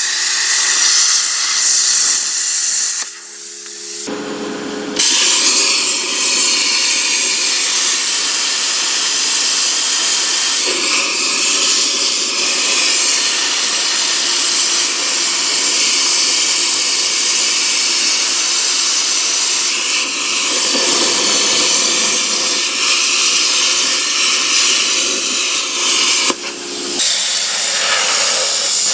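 Hypertherm Powermax 1000 plasma cutter cutting through a steel lathe bed: a loud, steady hiss of the arc and its air stream. The hiss drops off briefly about three seconds in and again near the end, as the cut pauses and restarts.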